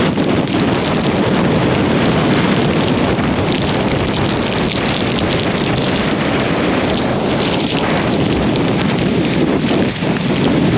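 Hurricane-force wind blowing across the microphone: a loud, dense rush of wind noise that barely lets up.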